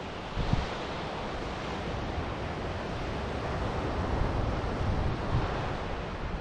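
Ocean surf washing onto a beach, a steady hiss of breaking waves, with wind buffeting the microphone in low irregular rumbles.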